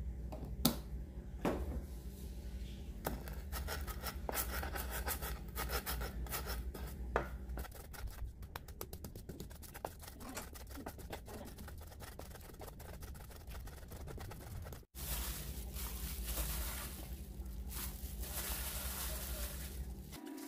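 Pestle crushing and grinding garlic cloves and coriander seeds in a clay mortar: a few sharp knocks, then rapid repeated scraping and grinding strokes. After a cut, softer rubbing as mushroom pieces are worked into the ground spice paste. A steady low hum runs underneath.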